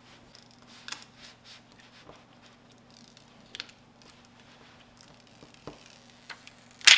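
Faint scattered clicks and ticks of fingers handling a phone and the plastic film of a screen protector as a backing tab is pulled away and the protector pressed down. One louder, sharp crackle comes just before the end.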